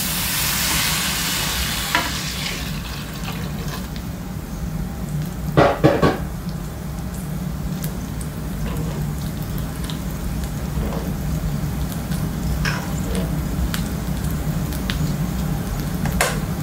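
Water poured into a pan of rice fried in hot ghee and coconut oil, hissing and sizzling loudly for the first couple of seconds as it hits the fat. Then a spoon stirring through the rice and water, with a few knocks against the pan about six seconds in, over a low steady sizzle.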